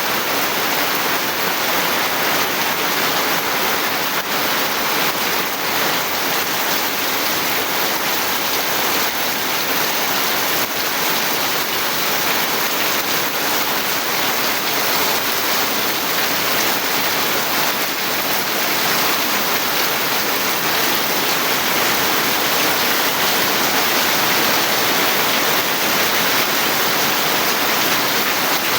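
Heavy rain falling steadily, a dense even hiss of water without a break.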